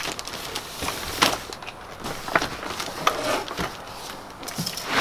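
A plastic laundry basket and wrapped presents being pushed and set down in a pickup truck bed: scattered knocks and scrapes with rustling wrapping paper.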